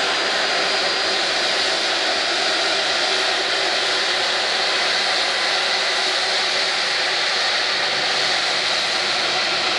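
Airbus A330-243 MRTT's Rolls-Royce Trent 700 turbofans running at taxi power: a steady jet engine rush with a faint high whine, holding level without rising or falling.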